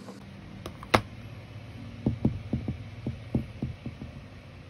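Plastic back cover of a Samsung Galaxy Note 8.0 tablet being snapped back on by hand. A sharp click comes about a second in, then a quick run of about nine lighter clicks and knocks as the edges are pressed home.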